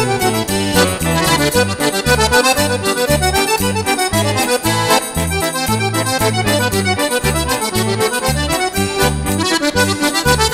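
Background music: an instrumental tune over a bass line that steps between notes and a steady beat.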